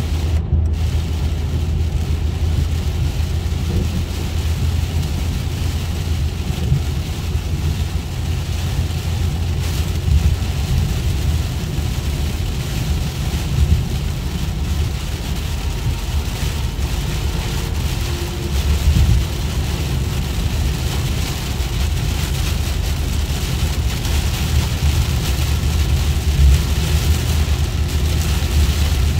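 Heavy rain hitting a car's windshield and roof at freeway speed, over a steady low rumble of road and engine noise heard inside the cabin. The rain noise drops out for a moment about half a second in, as the car passes under an overpass.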